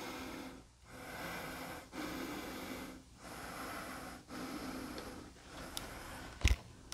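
A person breathing heavily close to the microphone, with slow, even breaths about a second each. A single sharp knock comes near the end.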